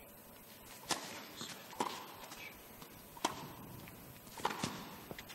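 Tennis rackets striking the ball in a rally, starting with a serve: sharp hits about a second apart, with two close together near the end.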